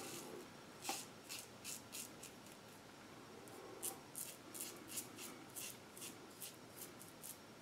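A double-edge safety razor (WCS 3D Wrap with a Blue Bird blade) shaving stubble against the grain on a lathered cheek. Each short stroke gives a faint scratchy rasp, about two or three a second, with a pause about halfway through.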